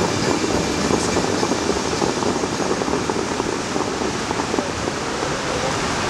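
Fountain water jets crashing back into the lake: a steady rushing, splashing noise as the spray dies down.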